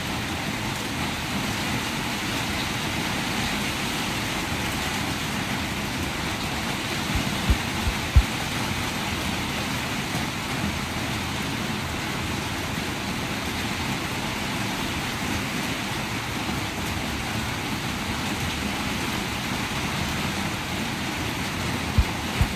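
Steady rain, an even hiss that never changes in level, with a couple of low thumps about seven to eight seconds in.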